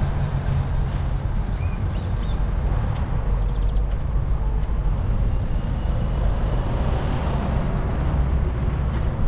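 A steady low rumble with a faint hiss above it and no distinct events.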